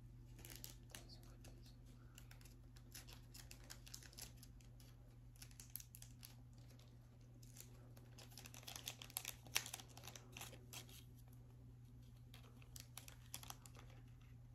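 Faint crinkling and rustling of Pokémon card packaging and plastic card sleeves being handled, in scattered small crackles that grow busier about eight seconds in.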